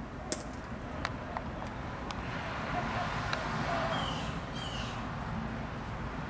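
Outdoor street ambience: a car passes, its noise swelling and easing off over a few seconds. A few light clicks are scattered through it, and two short, high, falling chirps come near the middle.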